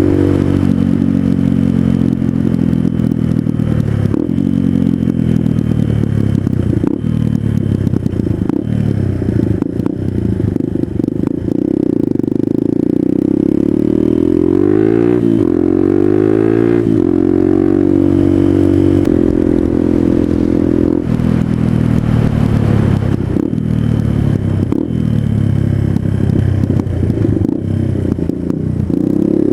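Suzuki DR200's single-cylinder engine running through an aftermarket DG O-Series exhaust, its speed rising and falling several times, with the biggest rise and drop about halfway through.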